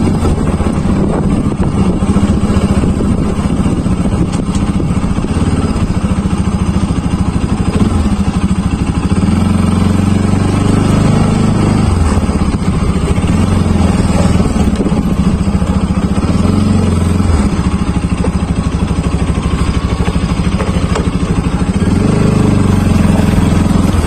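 Motorcycle engine running as the bike is ridden at low, steady revs, its note stepping up and down a few times.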